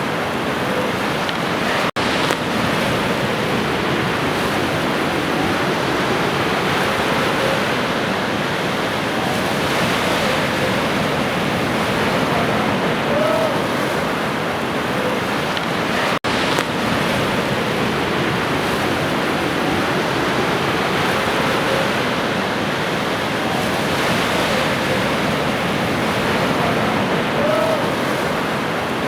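Sea waves washing on a shore in a steady, unbroken surf. The sound drops out for an instant twice, about 2 s and 16 s in.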